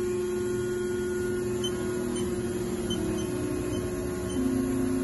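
The spindle of a 2005 Haas Mini Mill CNC vertical machining center running at low speed during a spindle speed test: a steady electric hum and whine, its tone shifting about three seconds in and growing a little louder near the end.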